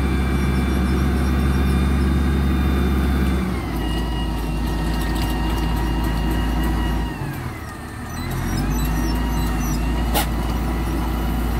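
Diesel engine of an XCMG GR1803BR motor grader running hard while the machine is bogged in mud, with a whine above it. The revs drop about a third of the way in, sag further around two-thirds in, then climb back. A single sharp click comes near the end.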